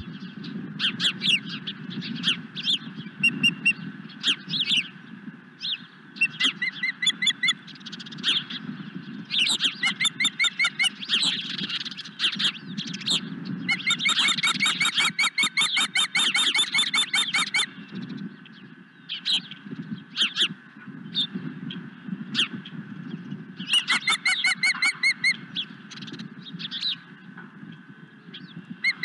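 Ospreys calling: repeated runs of short, rapid, high whistled chirps, the longest run about halfway through, over a steady low rumble.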